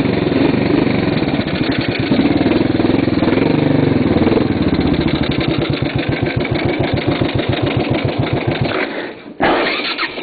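A motorcycle's electric starter cranking the engine in a fast, even pulse without it catching. The cranking stops briefly near the end, then starts again.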